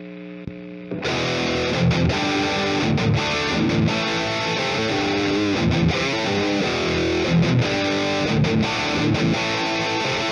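Electric guitar played through a Proteus neural-network capture of the Ignite Emissary amp-sim plugin, with a cabinet impulse response and reverb added, giving a distorted amp tone. A softly ringing held chord gives way about a second in to loud riffing of chords and single notes.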